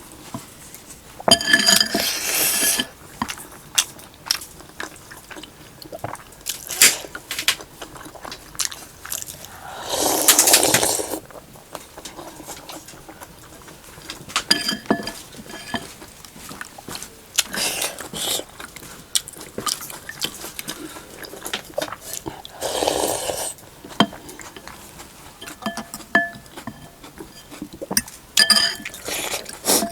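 Mukbang eating sounds: a spoon clinking against a bowl, with several loud slurps of noodle soup and broth, the longest about ten seconds in, and small chewing clicks in between.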